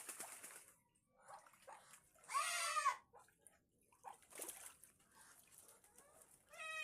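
Farm animal calls: a few short pitched cries that rise and fall in pitch, the loudest about two and a half seconds in, with fainter ones around it.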